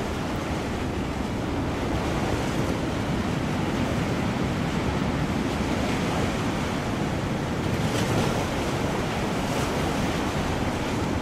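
Ocean surf and wind, likely a stock sound effect: a steady rush of breaking waves, swelling a little about eight seconds in.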